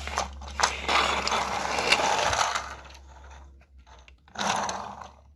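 Plastic Duplo toy van pushed by hand, its wheels rolling and rattling over the floor, with a few clicks of plastic. A shorter rattle follows about four seconds in.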